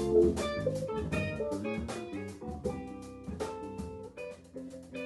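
Intro music with plucked guitar and drums, gradually fading out.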